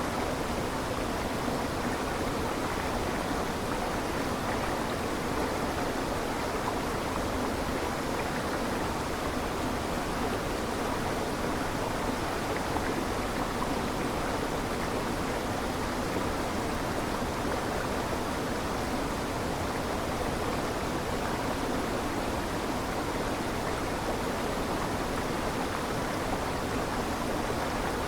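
Waterfall: a steady, even rush of falling water with no separate splashes or drops standing out.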